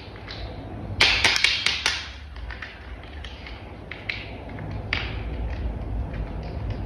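Hard plastic toy-vehicle parts clicking and snapping together: a quick run of sharp clicks about a second in, then scattered lighter clicks.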